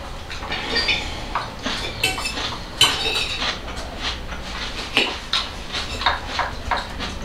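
Forks clinking and scraping against plates as people eat, in a run of irregular small clicks, with a few sharper clinks that ring briefly about two and three seconds in.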